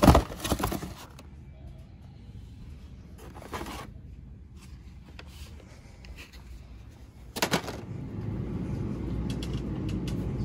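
Knocks and rustles of items and the phone being handled at a store shelf, loudest right at the start, with shorter bursts about three and a half and seven and a half seconds in. A low, steady rumble of store background noise sets in at about eight seconds.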